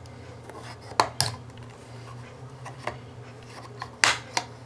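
Hard plastic case panels of a Sunvell T95k Pro Android TV box clicking and scraping as a thin pry tool works at their snap-fit seams, with sharp clicks about a second in and again near the end.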